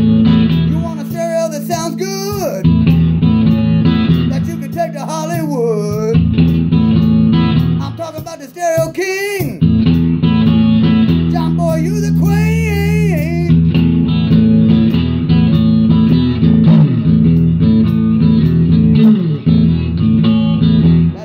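1965 Fender Mustang electric guitar played blues-style through an amp: sustained chords under wavering, bent lead notes. There is a brief dip about eight seconds in, and the playing stops at the very end.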